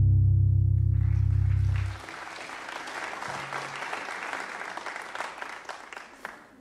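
The band's last held low chord rings on and cuts off about two seconds in, while the congregation applauds. The applause fades away near the end.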